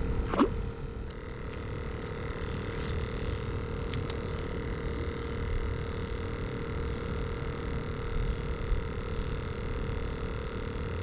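Wind rumbling on the microphone, with a faint steady hum throughout and a brief rising squeak about half a second in.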